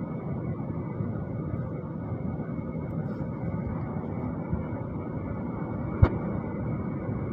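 Metal lathe running steadily while turning a shaft, with one sharp knock about six seconds in.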